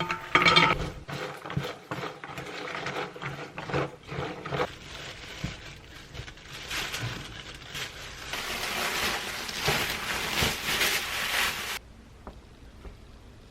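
Kitchen work sounds: a dish rings with a clink, followed by utensils and cookware scraping and knocking. Then a steady hiss runs for a few seconds and cuts off suddenly near the end.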